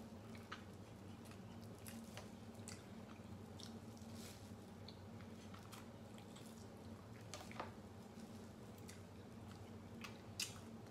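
Faint mouth sounds of someone eating seafood boil: chewing, sucking and smacking, with scattered short clicks and a sharper click near the end, over a steady low hum.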